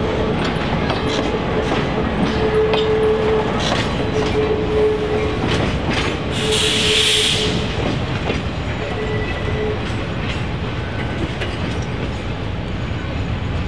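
Train rolling along the track, its wheels clicking over the rail joints. A steady tone comes and goes until about ten seconds in, and a short burst of hiss comes about six and a half seconds in.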